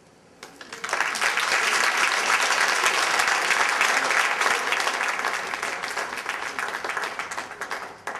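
Audience applauding: many hands clapping start about half a second in, swell quickly to full strength, hold, then tail off near the end.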